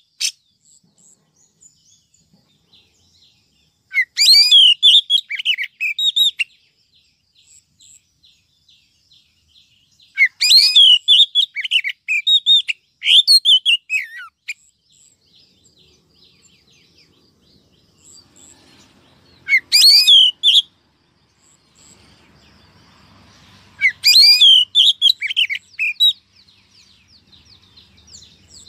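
Female Oriental magpie-robin singing: four loud bursts of quick, sliding whistled and warbled notes, each a second or more long, separated by pauses of several seconds. This is female song of the kind played to excite male magpie-robins.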